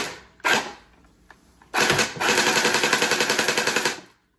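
Electric dual-barrel Gatling gel blaster firing full-auto. Two short sharp sounds half a second apart come first, then a rapid, evenly repeating burst of shots from its motor-driven mechanism lasts a little over two seconds and stops abruptly.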